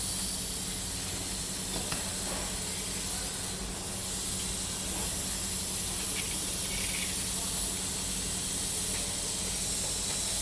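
Steady hiss with a constant low hum underneath, and a few faint ticks.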